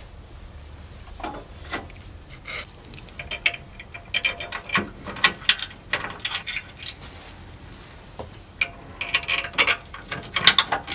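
Bolts, nuts and washers clinking against a metal frame support bracket as they are fitted and started by hand: a loose string of light metallic clinks and taps, busiest in the middle and again near the end.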